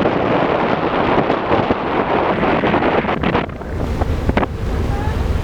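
Wind buffeting the microphone over the rush of sea water around a ship, a steady, loud noise that gets heavier and deeper about three and a half seconds in.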